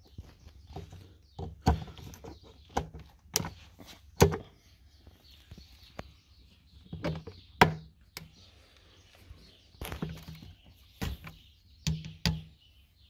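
Irregular hard plastic knocks and clicks, with the two loudest about 4 and 7.5 seconds in, as a new Audi A4 B7 coolant expansion tank is pushed and worked into its two mounting clips.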